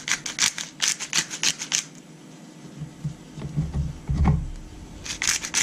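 Hand pepper mill grinding black peppercorns in quick repeated strokes, about six a second. It pauses for a couple of seconds with a few dull low knocks, then grinds again near the end.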